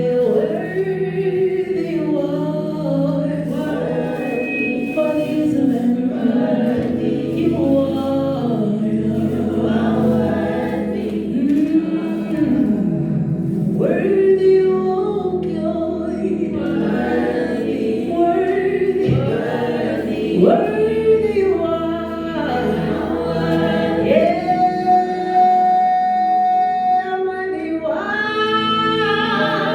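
Gospel worship singing: voices in long, sliding phrases over steady held chords.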